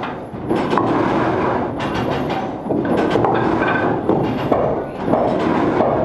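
A wind-powered sawmill's wooden machinery and frame saws running, with a steady, repeating mechanical clatter and knocking.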